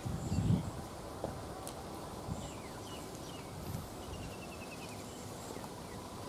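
Open-air rural ambience with small birds chirping faintly now and then, including a short rapid trill about four seconds in, over a low rumble that is strongest at the start.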